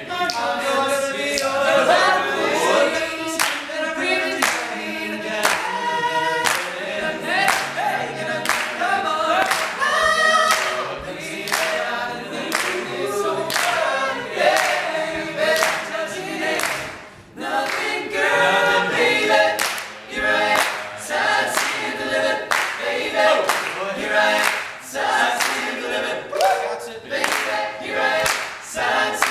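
All-male a cappella group singing an upbeat soul song in close harmony, over a steady beat of sharp percussive hits.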